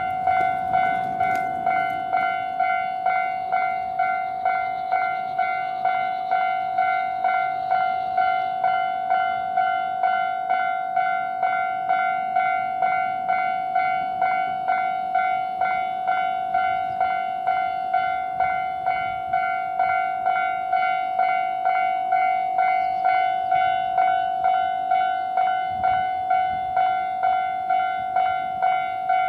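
Railway level-crossing warning bell ringing its repeated 'kan-kan' ding at about two strokes a second, signalling an approaching train.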